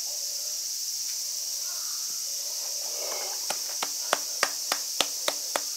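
Steady high-pitched drone of insects. About halfway through a run of sharp clicks begins, about three a second.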